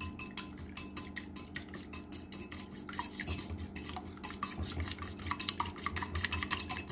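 A fork beating eggs in a white ceramic bowl: a fast, steady clicking of the tines against the bowl, several strokes a second.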